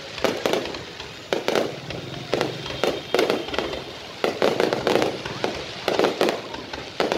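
Aerial fireworks display: shells bursting in a quick, uneven series of bangs, about two to three a second, each followed by a short rumble.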